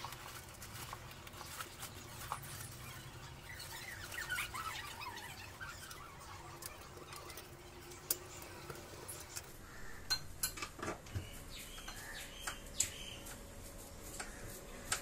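Faint scattered clicks and knocks from handling a foldable table's steel frame and wooden top, with a cluster of sharper knocks from about ten seconds in.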